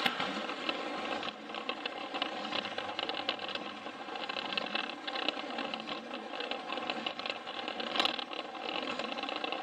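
Plarail toy train's small battery motor and gearbox whirring steadily as it runs, with a fast patter of clicks and rattle from the wheels on the plastic track, and one sharper click near the end.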